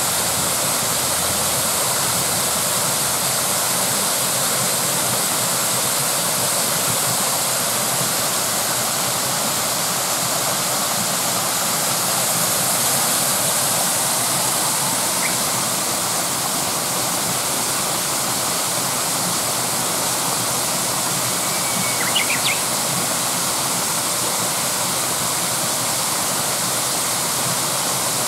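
Mountain stream rushing: a steady, full rush of running water. A brief high chirp sounds about three-quarters of the way through.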